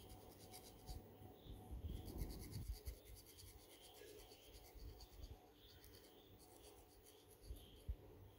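Faint scratching of a thin metal pick scraped along the scalp and through hair, lifting dry scalp flakes, in runs of quick strokes with soft low bumps of handling.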